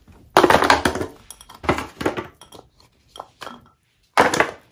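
Baby carrots being dropped and pushed into a disposable aluminium foil baking pan, the thin foil crinkling and rattling in about four short bursts.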